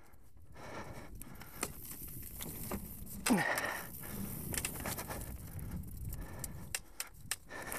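Mountain bike riding over a dirt trail covered in dry leaves, with tyres crackling through the leaves and the chain and frame rattling in quick clicks. It hits a louder clatter about three seconds in as it rolls over a small wooden ramp across a log.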